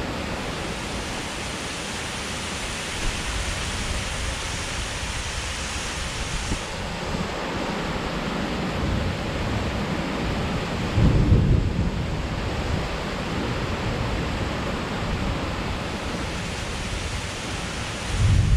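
Heavy rain pouring steadily, with a low rumble of thunder about eleven seconds in and another starting near the end.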